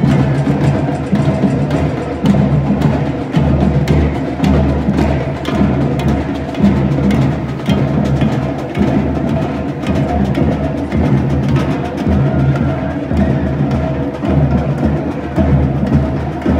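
Music with a steady beat, led by percussion and a low pulsing bass.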